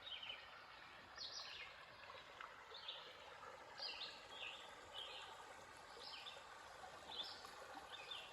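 A bird singing: short, high, downward-slurred notes repeated about once a second, over a faint steady hiss.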